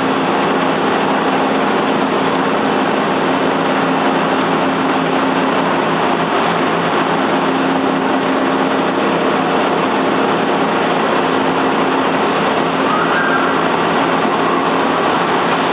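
Large Toyoda CNC lathe running: a steady machine hum with a constant low droning tone.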